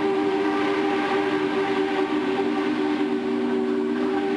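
Steam locomotive whistle blowing one long, steady chord of several notes over the running noise of a train.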